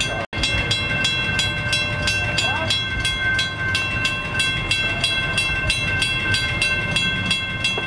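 Railroad crossing warning bell ringing in rapid, even strikes, about four a second, over a low rumble.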